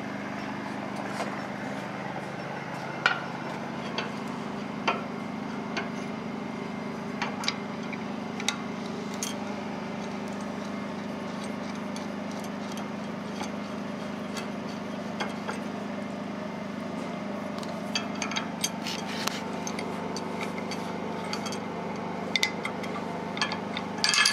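Scattered light metallic clinks and taps of bolts and hardware being handled while an air spring is bolted by hand to its steel upper mount, with more of them near the end. A steady low hum runs underneath.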